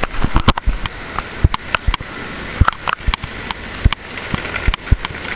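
Handling noise from a handheld camera jostled while walking: irregular sharp knocks and bumps, a few a second, over a rustling, noisy background.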